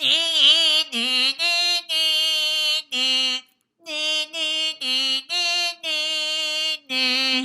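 A woman singing a short wordless 'na na' tune as a bird's song: about a dozen held notes in two phrases with a brief pause midway, the first note wavering.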